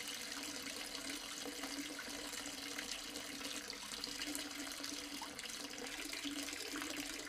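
Garden hose spraying a steady stream of water onto a dog's wet coat and splashing on the concrete floor.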